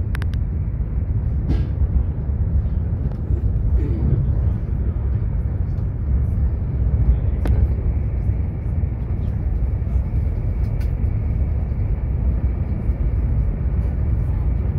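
Cabin noise of an MTR Express electric passenger train running at speed: a steady low rumble, with a few faint clicks and knocks scattered through it.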